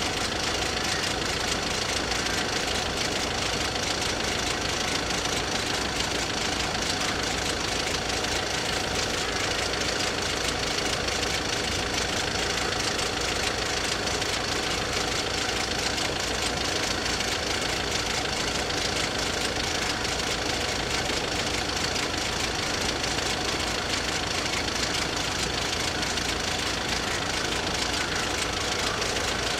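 Electric level-crossing warning bells ringing steadily and rapidly while the crossing is closed, the signal that a train is approaching.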